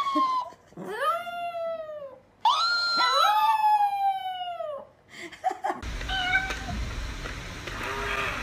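Chihuahua howling: three long wavering howls that slide down in pitch at their ends. About six seconds in, the howling stops and gives way to a noisier, fainter room background.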